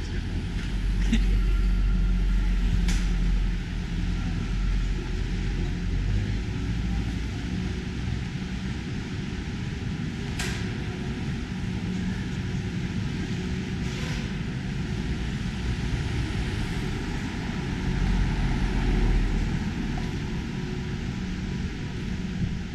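Outdoor traffic rumble: a steady low drone of passing vehicles that swells louder twice, about a second in and near the end, with a few short sharp clicks.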